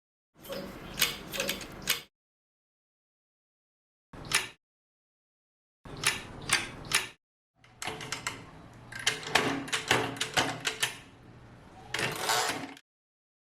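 Facit typewriter mechanism clicking and clacking in four separate bursts of sharp clicks, with dead silence between them.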